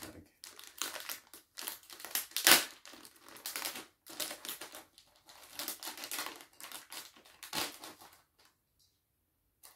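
Small plastic packaging bag crinkling and crackling in the hands in irregular bursts as it is handled and opened, with one sharper crackle about two and a half seconds in. The crinkling stops about eight seconds in.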